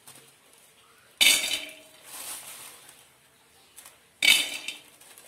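Handfuls of peanuts dropped into an aluminium pot, clattering and rattling against the metal with a ringing note. It happens twice, about three seconds apart.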